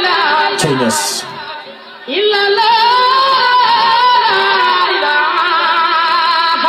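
A song with a singing voice holding long, wavering notes; the music dips briefly about a second and a half in, then the singing picks up again.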